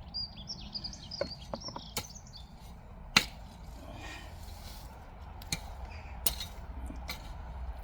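A garden digging tool striking into soil, five sharp knocks spaced a second or so apart, the loudest about three seconds in. A bird chirps during the first second and a half.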